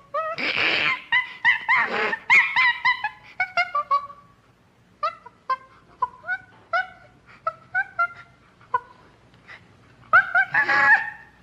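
Common chimpanzee calling: quick series of short, high, pitched hoots and squeals that bend up and down, broken by harsh screams near the start, about two seconds in, and near the end.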